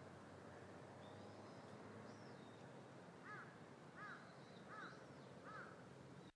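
A crow cawing four times at an even pace, about three-quarters of a second apart, over a faint steady background hum, with thin high chirps of small birds.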